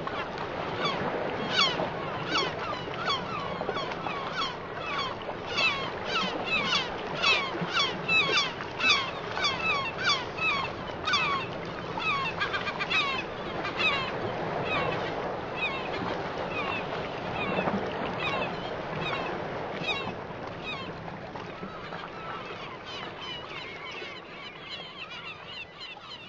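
Many birds calling over and over, short falling calls overlapping several times a second, busiest in the first half and thinning out toward the end.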